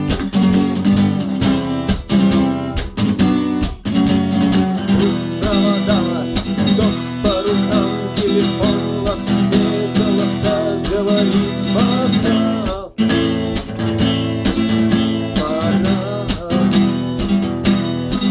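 Guitar strummed in a steady rhythm as an instrumental passage of a song, with a wavering higher melody line over the chords for several seconds in the middle.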